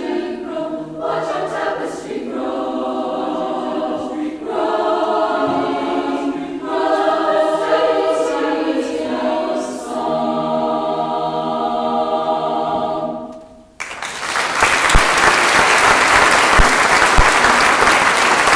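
Women's choir singing in harmony through the last phrases of a piece, ending on a long held chord that fades away about 13 seconds in. After a brief hush, an audience breaks into applause that carries on to the end.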